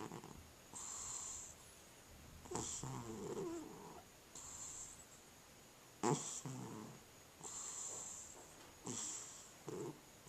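Cat snoring, a breath about every one and a half to two seconds. Each breath is a soft rattling snore with a high hiss, and the loudest comes about six seconds in.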